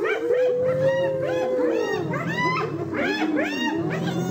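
A group of hyenas calling over one another: many short rising-and-falling squeals and yelps. One long held call fades out in pitch about a second and a half in.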